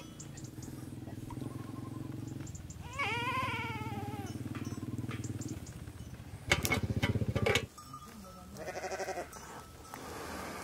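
A young sheep or goat bleating three times: a wavering call about three seconds in, a loud harsh call just past six seconds, and a shorter call near nine seconds. A steady low hum sits under the first half.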